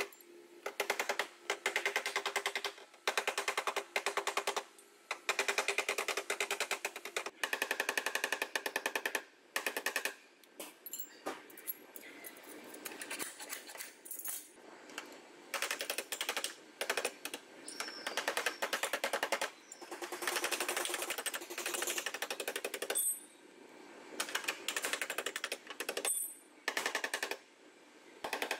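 Steel body hammer rapidly tapping the dented sheet-metal wheel-arch lip and sill, with the panel ringing. The taps come in bursts of about a second with short pauses between, and are sparser for a few seconds in the middle. This is panel-beating to reshape the crash-damaged rear wheel arch.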